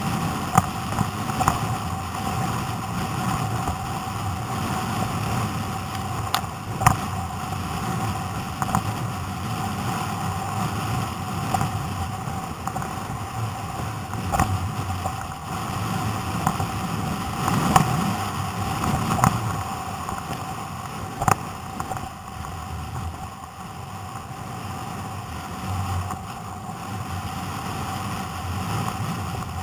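Wind buffeting the microphone and choppy sea water rushing and slapping against a sit-on-top fishing kayak's hull, with a few sharp irregular knocks and a steady faint hum underneath.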